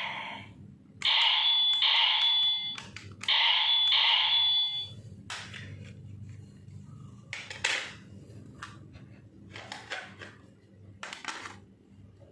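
Electronic sound effects from the DX Attache Arrow toy bow's speaker: two ringing, alarm-like bursts about a second and a half long each, with a steady high tone through them. After them come a series of sharp plastic clicks and knocks as the toy is handled.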